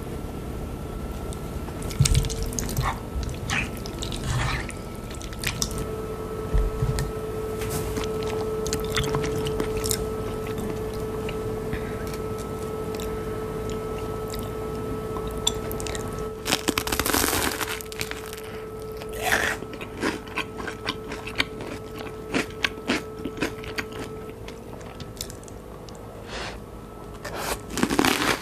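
A wooden spoon knocks and scrapes as pasta is mixed with pesto. Several loud crunches of toasted baguette being bitten follow in the second half. A steady hum runs underneath.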